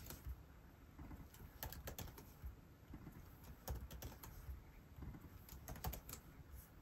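Faint, irregular keystrokes on a computer keyboard, in short scattered clusters of taps.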